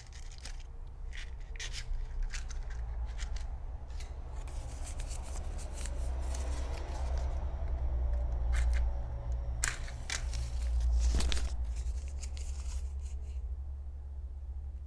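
Paper rustling and crinkling as it is handled, then a match scraped against the striker of a matchbox and catching, about ten seconds in.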